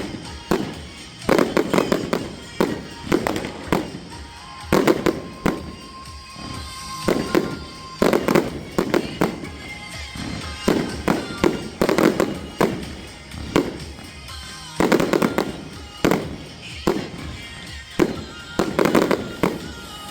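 Fireworks display: aerial shells bursting in quick clusters of sharp bangs, with echoing tails, every second or two, over background music.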